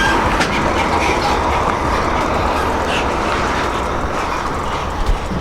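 Heavy semi truck on the move: a steady low rumble with dense rattling and clatter, and one low knock about five seconds in.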